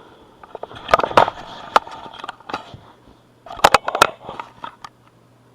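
Plastic Lego pieces clicking, clattering and scraping as a Lego model is handled and its parts are moved into place, in two spells of sharp clicks about a second and three and a half seconds in.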